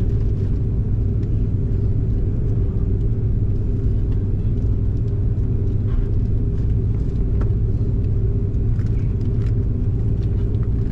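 Airliner cabin noise: a steady low rumble with a constant hum, and a few faint scattered clicks.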